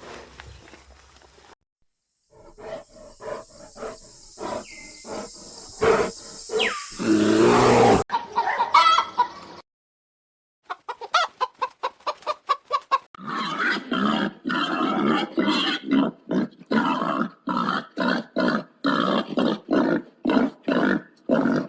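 A run of short animal calls in several separate clips. The last half is a quick series of short repeated calls, about two a second.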